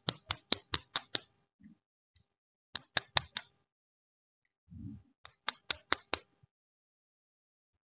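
Three quick runs of sharp clicks, about five a second, as the clay toy popsicles on plastic sticks are handled and tapped together. A soft thump comes just before the last run.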